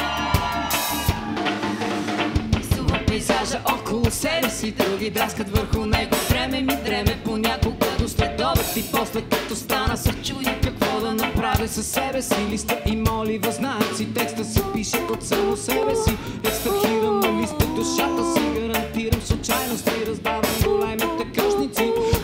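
Live reggae band playing an instrumental passage: a steady drum-kit beat, bass, and a wavering lead melody line on top.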